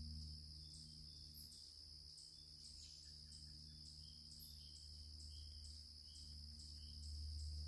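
Faint crickets in woodland: a steady high insect drone with short chirps about twice a second, over a low steady rumble.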